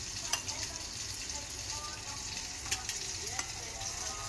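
Breaded shrimp frying in hot olive oil: a steady sizzle with a few sharp pops, the loudest a little past halfway.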